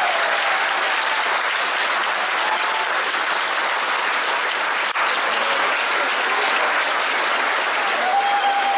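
Large seated audience giving a standing ovation: dense, steady applause, with a few cheers rising over it.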